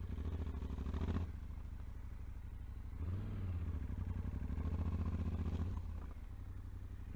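Yamaha Ténéré 700's parallel-twin engine running at low revs, the revs picking up briefly about a second in and again from about three seconds, then easing off near the end.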